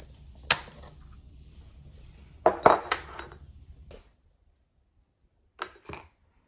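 Clicks and clatter of a ceramic-coated pot and its detachable clip-on handle being handled on a table: a sharp click about half a second in, then a cluster of louder knocks and clatters around two and a half to three seconds. After the background hiss cuts out, two lighter knocks come near the end.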